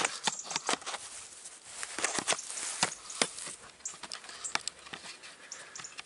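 Close handling noise from a camera being wedged into place: irregular clicks, taps and knocks over rustling, a few of them sharp and loud.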